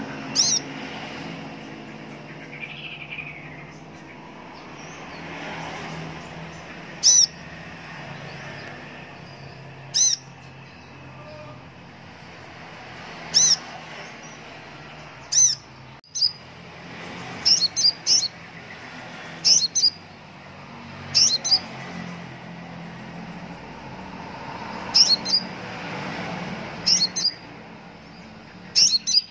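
Male Van Hasselt's sunbird (kolibri ninja) calling: short, sharp, high-pitched chirps every few seconds, some single and some in quick pairs or triples.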